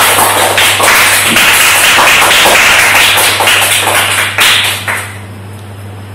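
Small group of people applauding, a dense run of hand claps that dies away about five seconds in.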